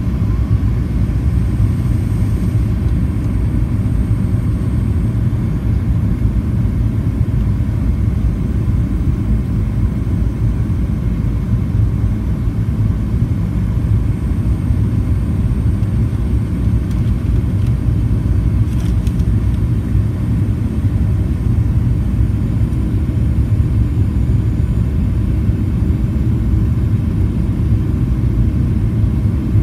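Airliner cabin noise during descent: a steady, loud low rumble of engines and airflow, unchanging throughout.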